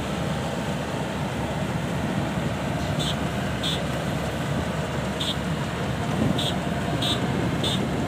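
Kubota DC-105X rice combine harvester, its diesel engine running steadily as the tracked machine drives and turns. From about three seconds in, short high-pitched tones repeat at irregular intervals over the engine.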